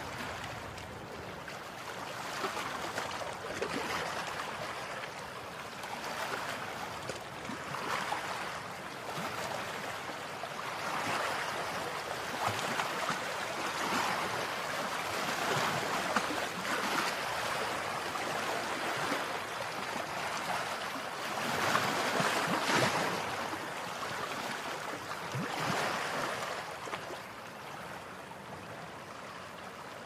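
Sea waves washing against a breakwater: a noisy wash of water that swells and ebbs every few seconds, loudest about two-thirds of the way through.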